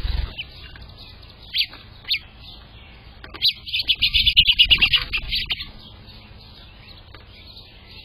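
House finches chirping: a few separate chirps, then about two seconds of rapid chattering calls in the middle as several birds crowd the feeder.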